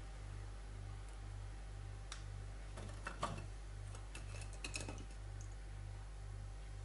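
Faint scattered clicks and taps of ladyfinger biscuits being dipped in a plate of milk and set down on a baking tray, over a low steady hum.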